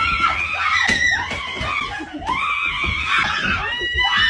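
A person screaming, high-pitched, in a run of cries that swoop up and down in pitch.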